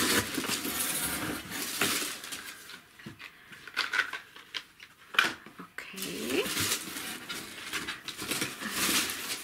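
Paper and packaging rustling and crinkling as items are handled and lifted out of a cardboard subscription box, with a few sharp knocks, the loudest about five seconds in. A short rising voice-like sound comes about a second after that.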